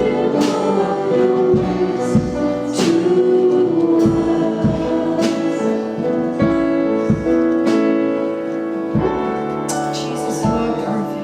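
Live church worship music: sustained keyboard chords over a steady, regular drum beat.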